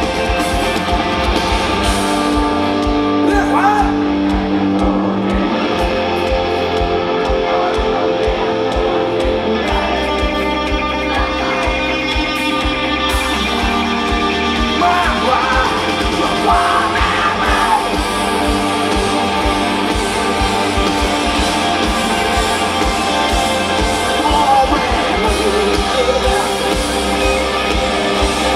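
A rock band playing live at full volume, heard from the audience: electric guitars, bass and drums, with the lead singer's voice coming in over the top at times.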